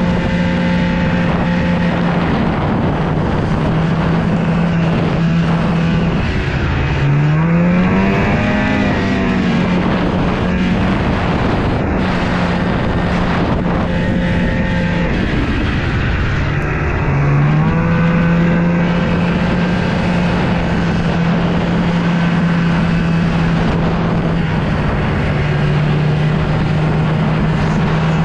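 Snowmobile engine running at a steady idle, revved up twice, each time rising in pitch and settling back.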